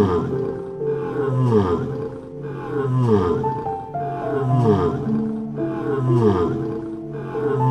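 Background music with held notes over a low, falling tone that pulses evenly about once every three-quarters of a second.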